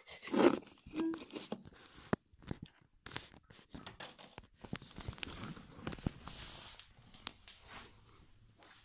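Faint handling noise from small toys being moved about by hand: scattered light clicks, taps and rustles, with a short louder rustle about half a second in.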